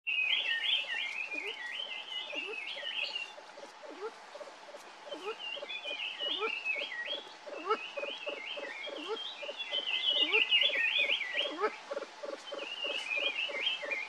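Kalij pheasants clucking softly and steadily while they feed, about three short low clucks a second. Bursts of high, chirping bird twitters come and go above the clucks.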